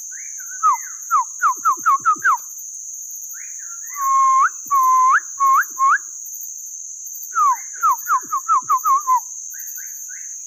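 A man whistling imitation bird calls with his mouth to lure birds toward a catching net: three bouts of quick, down-slurred whistled notes, the middle bout slower with longer swooping notes. A steady high-pitched insect drone runs underneath.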